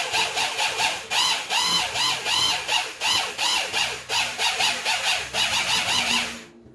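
Rhythmic squeaking, about three squeals a second, each rising and falling in pitch, from stirring thick liquid detergent in a plastic bucket. It stops suddenly near the end.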